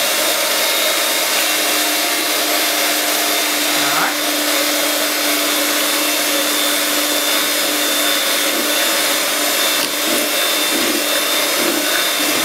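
Electric hand mixer running steadily at a raised speed, its beaters whisking cream and condensed milk in a bowl: a constant motor whine.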